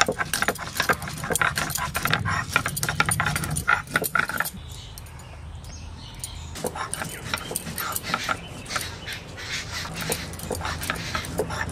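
Stone roller grinding dried red chillies and black peppercorns on a flat stone slab (shil-nora), a run of quick scraping, crunching strokes. The strokes ease off for about two seconds in the middle, then pick up again.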